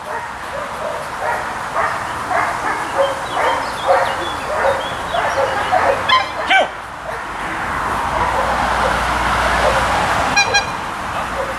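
Belgian Malinois barking in quick, repeated barks at a decoy in a bite suit who stands motionless. This is the guard bark of ring sport, where the dog holds the decoy by barking instead of biting. The barking thins out after about seven seconds, and a brief high toot sounds near the end.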